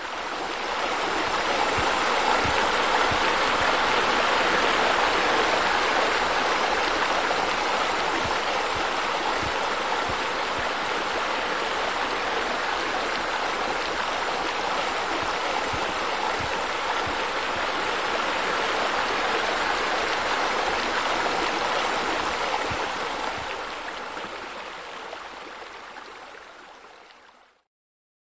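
Steady sound of running, splashing water, as from a pool's spillways and spa bubblers, with small gurgles underneath. It swells up over the first second or two and fades away over the last few seconds.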